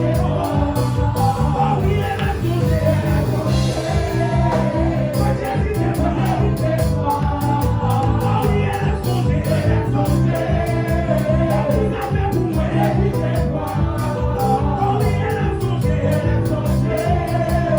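Live gospel praise music: singing over a band with a steady, even drum beat.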